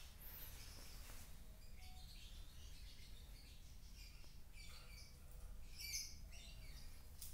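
Faint, scattered high chirps and small clicks over a low steady hum.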